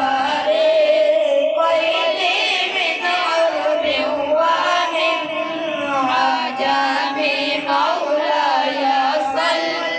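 A sung Islamic devotional chant: a voice holding long, wavering melodic notes.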